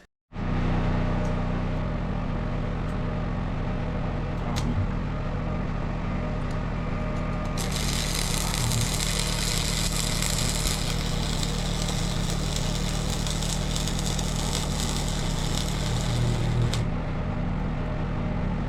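Generator running steadily at high revs, powering a small stick welder. From about eight seconds in to about seventeen seconds in, the welding arc sizzles over the engine.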